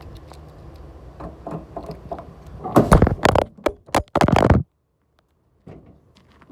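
A handheld recording phone's microphone being handled: low rumble and scattered clicks, then loud rubbing and knocks, then the sound cuts out to dead silence for about a second.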